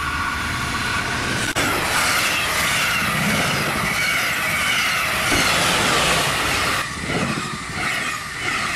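Red double-deck regional train passing close at speed: a loud, steady rush of wheels on rail that rises sharply about a second and a half in. Near the end it breaks into an uneven rhythmic clatter as the coaches' bogies go by.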